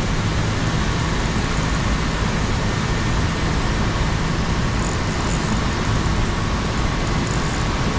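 Water pouring over a spillway dam: a steady, loud rush of falling and churning water.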